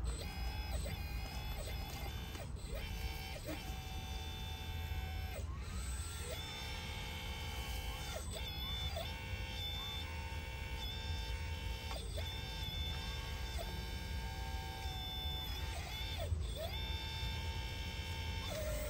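Hydraulic pump of a 1/16 scale RC Volvo EC160E excavator whining, its pitch stepping up and down every second or two as the boom and bucket are worked, with short rising glides as it takes up load.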